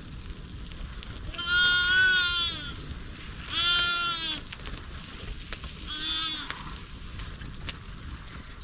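Sheep bleating three times with a quavering voice: a long bleat, a shorter one, then a brief one, over a steady background hiss.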